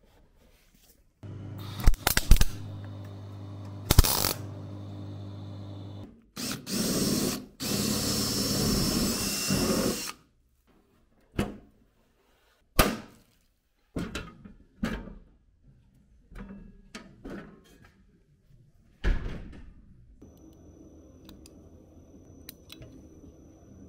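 Electric drill running in two spells: first a steady hum with a few sharp clicks, then a louder, harsher run. After that come scattered knocks and clicks of metal panel work.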